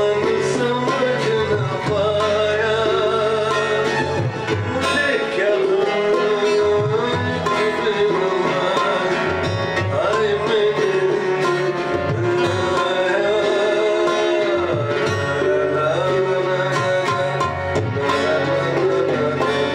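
A man singing a slow melody with wavering, gliding held notes, accompanied by an electronic keyboard holding low sustained notes and a tabla.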